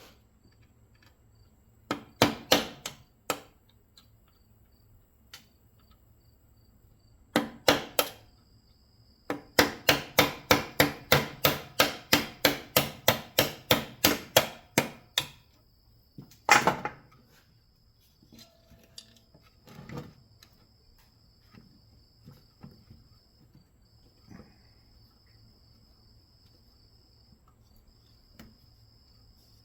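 Hammer striking a steel punch to drive a tight hinge bolt out of a metal motor starter. A few strikes come first, then a quick run of about twenty blows at three or four a second, and one heavier hit. The bolt is slow to come through.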